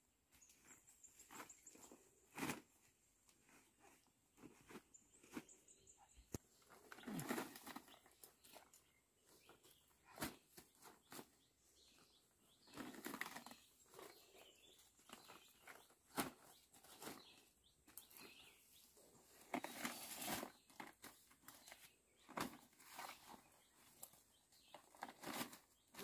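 Faint rustling and crackling of large dong leaves and their stems being handled and stacked into bundles by hand, with scattered sharp snaps and a few longer swishes.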